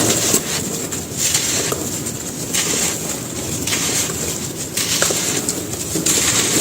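Dry sand-cement pieces being crumbled and crushed, a gritty crackling crunch that swells in repeated surges about once a second.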